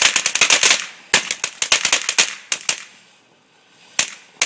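Firecrackers going off in a rapid crackling string of sharp pops, dense at first and thinning out, stopping about three seconds in, then a couple of single pops near the end.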